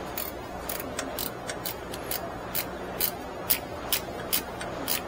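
A ratchet wrench tightening the new radiator's mounting bolts: a run of sharp clicks, a few a second and irregularly spaced, louder in the second half.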